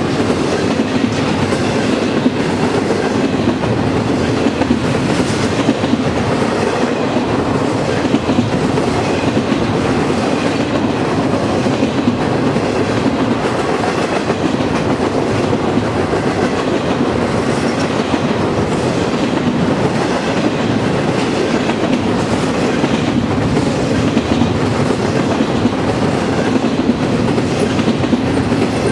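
Railroad cars rolling past on steel rails in a steady, loud run, with wheels clicking over the rail joints in a regular rhythm.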